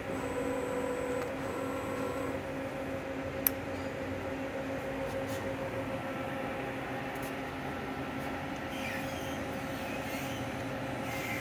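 Steady electrical and mechanical hum of a powered-up Matsuura MC-760V vertical machining center standing at idle, with several constant tones and no axis movement. A single sharp click comes about three and a half seconds in.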